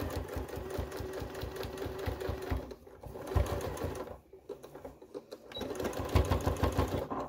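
Domestic sewing machine stitching through layers of fabric, running fast and steady, stopping a little under three seconds in with one short burst of stitches, then running again near the end.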